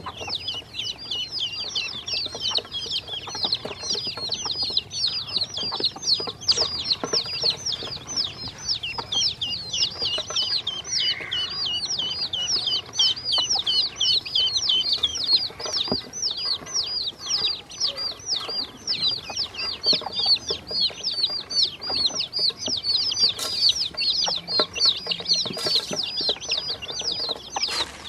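A brood of baby chicks and ducklings peeping continuously, a rapid stream of high-pitched, falling peeps from many birds at once.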